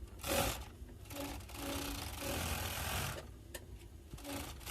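Willcox & Gibbs 500-4 industrial overlocking sewing machine running and stitching, then stopping about three seconds in, with a few clicks after.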